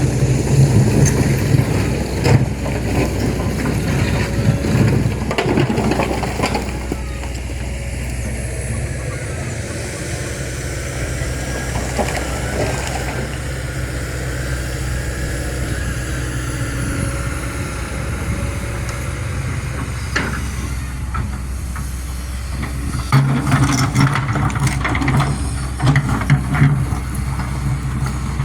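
Kobelco SK200 hydraulic excavator's diesel engine running, working harder with a rougher, louder note for the first six seconds and again from about 23 seconds in, steadier in between. A hiss and a faint high whine ride over the engine.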